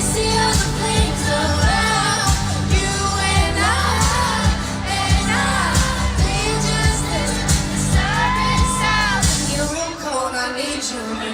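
Female pop singer singing live over a pop backing track with a steady kick-drum beat. Near the end the bass and drums drop out, leaving the voice and upper parts of the music.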